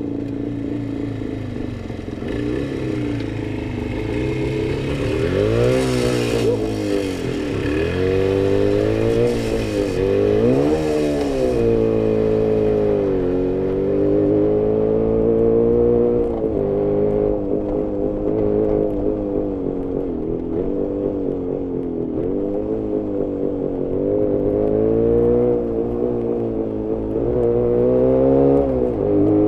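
Jawa 350 638's two-stroke twin engine heard onboard under way, its revs rising and falling with the throttle, with a few sharp rev swings. The engine is running lean, which the owner says leaves it short of power and unable to idle without constant throttle.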